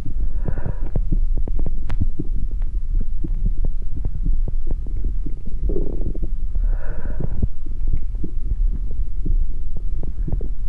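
Amplified body sounds built on heart sounds: a steady low rumble packed with soft thumps and clicks, with two breaths, one about half a second in and a longer one around six to seven seconds in.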